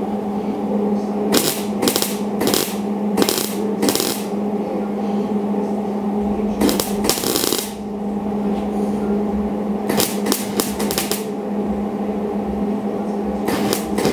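Wire-feed welder tack-welding the sheet-steel trunk gutter seam of a 1967 Dodge Coronet: short crackling bursts of arc. They come in quick runs (five in a row, then a longer one, then four close together, then more at the end) with short pauses between.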